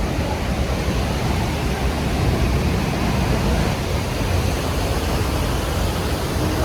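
Steady rushing roar of a waterfall, an even wash of noise with no breaks.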